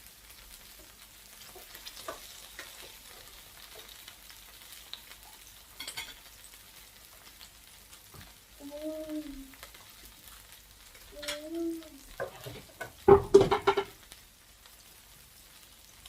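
Food sizzling on a tabletop gourmet grill plate, a faint steady frying hiss with light clicks of utensils. There are a couple of short vocal sounds, and a brief louder burst a little past the middle.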